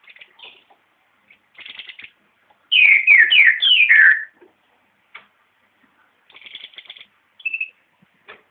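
Green-headed tanager (saíra-sete-cores) calling: short buzzy chips, then a run of four loud notes, each sliding down from high to lower pitch, about three seconds in, and more chips and a short clear note near the end.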